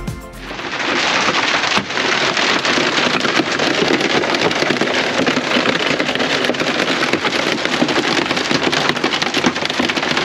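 Hail and rain pelting a motorhome's roof and roof skylight, heard from inside: a dense, steady clatter of countless small impacts.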